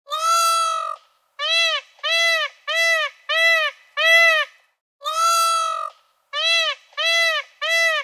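Animal calls in a repeating sequence: one long call, then a run of short calls that rise and fall in pitch, with the sequence starting over about five seconds in.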